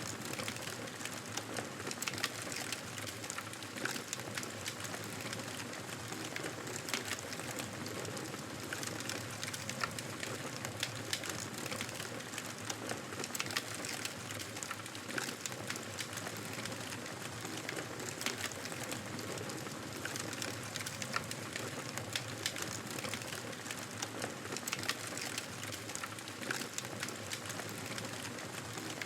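Wood fire burning in a fireplace: a steady rushing of flames with frequent small crackles and pops scattered irregularly throughout.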